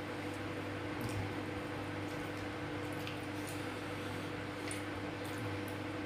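Faint wet squishes and small clicks of fingers kneading rice on a plastic plate, eaten by hand, over a steady background hum.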